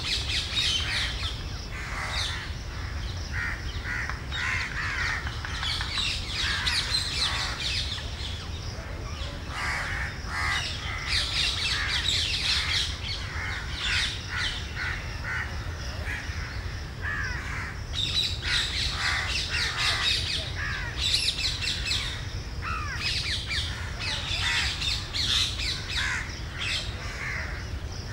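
Several birds calling at once, a busy chorus of short, repeated calls and chirps, over a low steady rumble.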